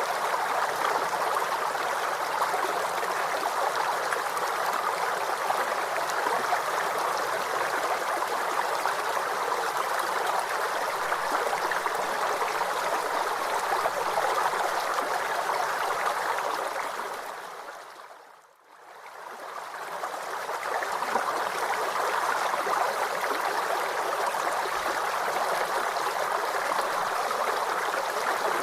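Waterfall's rushing water, a steady even hiss. About two-thirds of the way through it fades away over a couple of seconds, dips to almost nothing, and swells back in.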